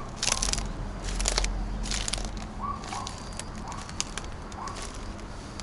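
Irregular crunching footsteps over wet, debris-strewn ground, with a few short rising chirps in the background.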